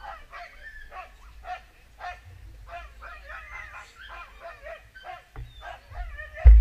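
Husky in bikejoring harness yelping and whining over and over, about two cries a second, excited at the start line. A loud low thump comes near the end.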